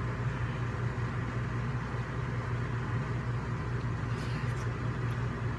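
A steady low hum under an even hiss, with a few faint, short mouth or eating sounds about four seconds in.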